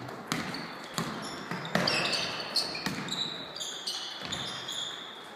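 Basketball game on a hardwood court: a ball bouncing several times and sneakers squeaking briefly and repeatedly on the floor, with players' voices calling out.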